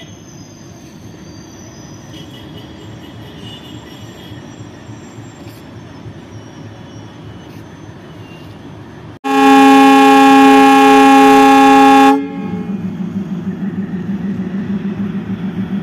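WDP-3A diesel locomotive rumbling at the platform, then one loud horn blast of about three seconds, starting about nine seconds in, signalling departure. After the horn, its 16-cylinder ALCO diesel engine throbs louder and rhythmically as it takes power to pull away.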